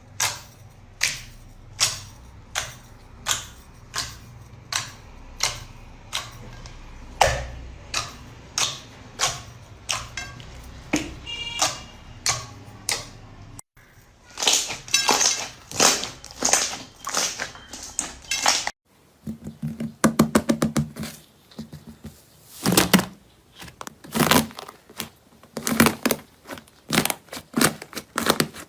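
A series of sharp taps or knocks, slightly more than one a second at first, then after abrupt cuts faster, more irregular clicking and tapping.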